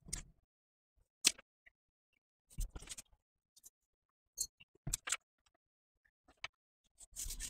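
Paper template pieces being handled and glued on a cutting mat: a few light, spaced-out taps and clicks as the paper and glue bottle are moved, then a soft scratchy rustle of paper being smoothed near the end.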